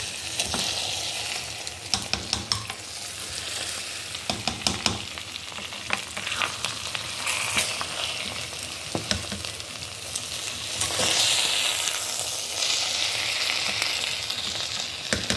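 Cooked jollof rice sizzling in a metal pot as a spoon stirs it, with scattered clicks and knocks of the spoon against the pot. The rice has absorbed nearly all its liquid and is drying out.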